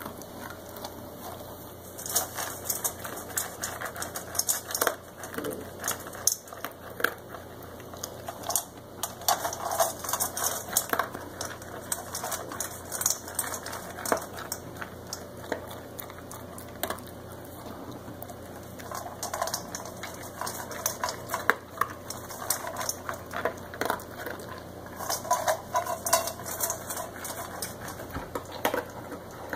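A dog eating dog food from a stainless steel bowl: rapid clicks and clinks of food and teeth against the metal, in bursts with short pauses.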